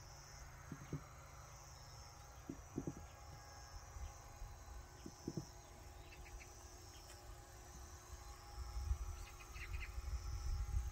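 Insects chirping in repeated high trills, each phrase about a second long, over faint outdoor ambience. A few soft paired taps come from hands working soil among the onion seedlings, and a low rumble builds near the end.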